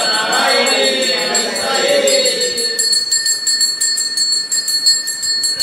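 Metal hand bell (ghanta) rung rapidly and continuously during aarti worship, its steady high ring carrying on throughout. Group chanting of the aarti sounds over the bell and stops about halfway through, leaving the bell alone.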